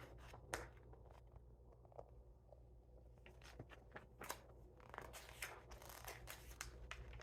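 Faint rustling and small clicks of paper pages being handled and turned in a picture book, over a low steady hum.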